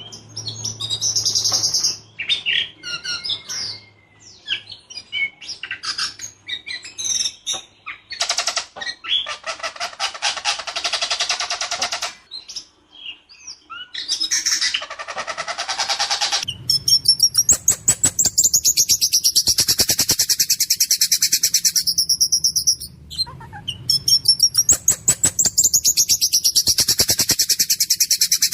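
Ciung batu songbird singing loudly. Varied sharp whistles and chattering phrases come first. About halfway in, the song turns into a long, fast, harsh rattling trill, broken only by short pauses.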